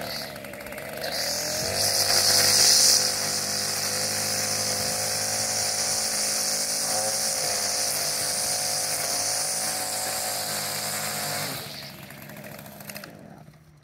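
String trimmer run at full speed to edge the grass along the concrete: it speeds up about a second in, holds a steady high-speed pitch, then the throttle is let off near the end and the sound falls away.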